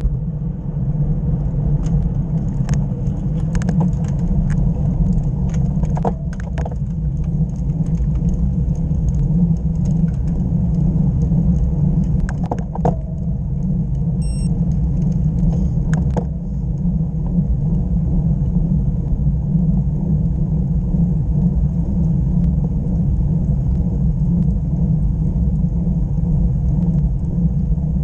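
Wind buffeting a bike-mounted action camera's microphone, mixed with tyre and road noise from a road bike, as a steady low noise. Scattered sharp clicks and rattles from the bike come through in the first sixteen seconds or so.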